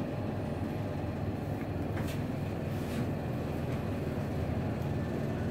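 Steady rumble of a Hitachi elevator car travelling upward, heard from inside the car.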